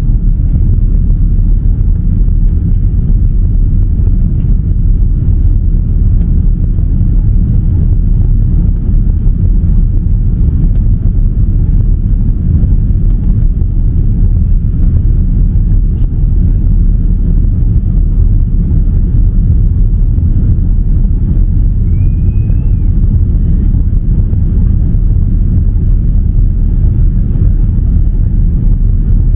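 Cabin noise inside a Boeing 787-9 climbing after takeoff: a loud, steady low rumble of its Rolls-Royce Trent 1000 engines and the rushing air outside the fuselage.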